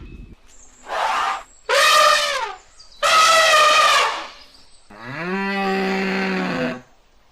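A series of four animal calls: a short rough call, two higher pitched calls that fall in pitch, then a longer, lower call that rises at its start and holds steady for about two seconds.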